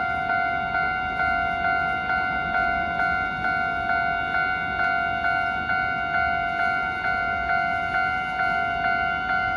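Railway level-crossing warning bell ringing at a steady pace of about two strikes a second.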